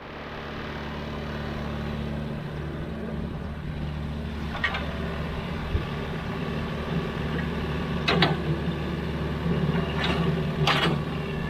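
Sany excavator's diesel engine running steadily, with four sharp knocks in the second half.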